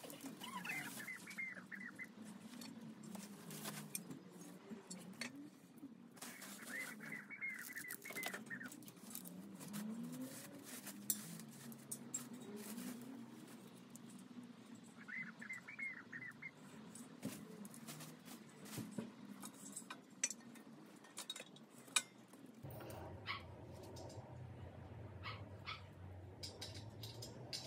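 Scattered light clicks and knocks of bench parts and packaging being handled, with three short bursts of rapid high chirping.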